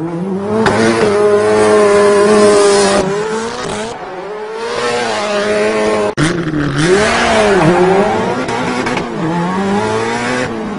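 Race-car engine revving as a sound effect, its pitch climbing at the start and holding, then swinging up and down several times after a brief cut about six seconds in, with tyre squeal.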